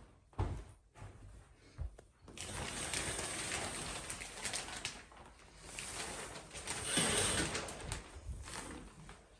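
Shower curtain being pushed aside and handled: an uneven rustling and scraping of the fabric and its rings on the rod, loudest about seven seconds in.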